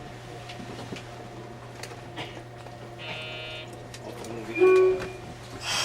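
Train cab equipment: a steady low electrical hum with faint clicks, a short electronic beep about three seconds in, a louder short tone near five seconds, and a burst of hiss at the very end.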